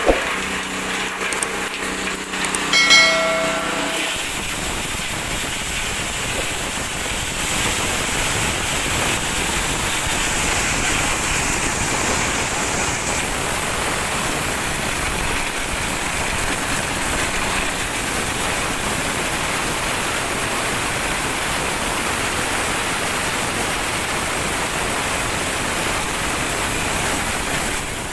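Small motorised corn sheller running and stripping dried corn cobs, making a steady, dense noise. It starts with a hum and a brief high tone, and the shelling noise comes in about four seconds in and stays level.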